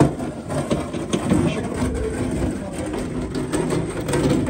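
Mixed feed sliding out of a tipped wheelbarrow into a barn feed trough: a dense, steady rustling and scraping that starts abruptly.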